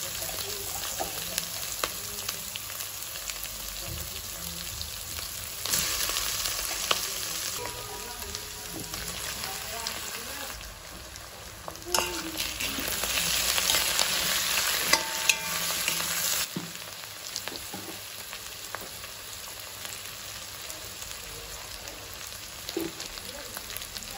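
Chopped cabbage and onion sizzling in hot oil in a metal wok, with scattered clicks. The sizzle is louder for a while about six seconds in, and again from about twelve to sixteen seconds in, when potato cubes are dropped into the pan.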